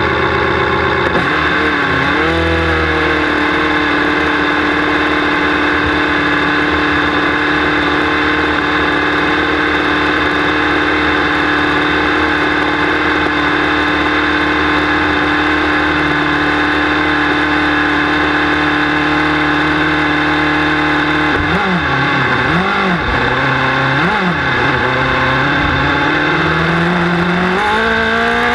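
Red Bull RB8 Formula 1 car's 2.4-litre Renault V8, heard from on board, idling high and steady after a quick blip of the throttle about two seconds in. Later it is blipped three times in quick succession, and near the end the revs climb.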